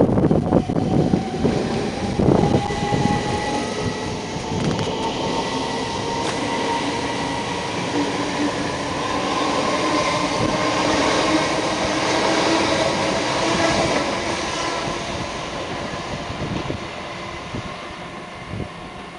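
Southern Class 377 Electrostar electric multiple unit passing underneath, with a run of sharp knocks from the wheels over rail joints in the first few seconds. A steady whine from the train and the rumble of its wheels follow, easing slightly near the end as it draws away.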